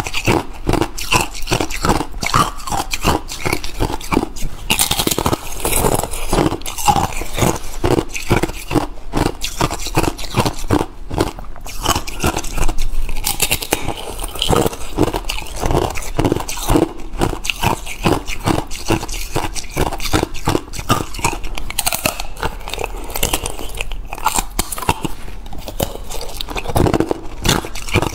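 Thin, clear ice being bitten and chewed: a dense run of sharp crunches and cracks as the ice breaks between the teeth.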